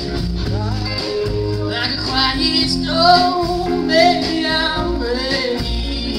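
Live band music with singing, played on electric guitar, upright bass, drums and keyboard.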